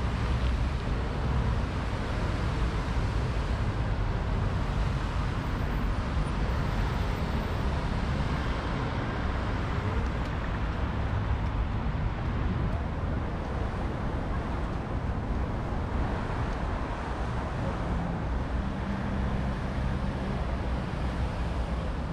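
Steady road traffic, with cars passing in a continuous low rumble of engines and tyres.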